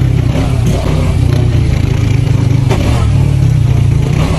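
Off-road buggy engine running as it drives, a loud steady low rumble, with a couple of sharp knocks.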